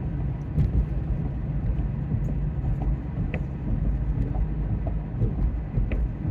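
Steady low background rumble, with a few faint clicks on top.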